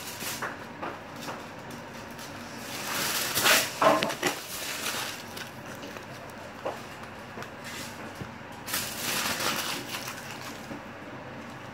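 Aluminium foil crinkling as hands work around a foil-lined baking dish, in two louder bursts about three seconds in and near nine seconds, with lighter rustling between.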